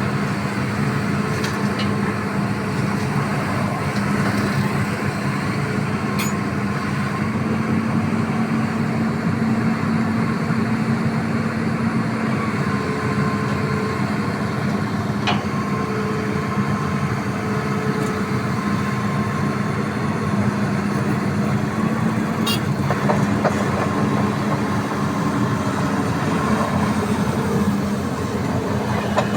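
Hitachi excavator's diesel engine running steadily as it digs, its pitch rising a little for a few seconds in the middle, with a few sharp clanks.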